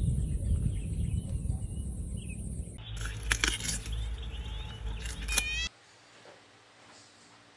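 Outdoor ambience with a low rumble and faint bird chirps, then sharp crunching clicks as a giant panda chews bamboo, with a short chirping call near the end of that. Near silence for the last two seconds.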